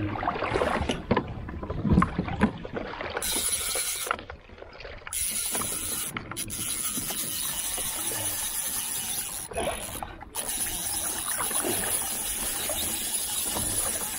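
Fishing reel being cranked to bring in a hooked fish, with scattered mechanical clicks early on. Steady wind and water noise follows, broken by a few brief dropouts.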